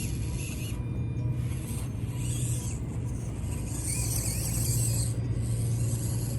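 A 1/24-scale Axial SCX24 RC crawler's small electric motor and geared drivetrain whirring as it crawls, with a rough grinding hiss that swells and fades in stretches, loudest a little past the middle.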